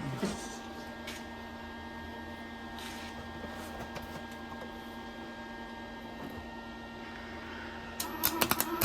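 Electric welder running with its arc sizzling steadily over a steady hum. Near the end the arc gives way to loud, irregular cracks and pops.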